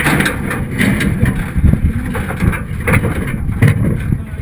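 Off-road race vehicle driving over rough ground: a dense engine and drivetrain rumble with irregular knocks and rattles.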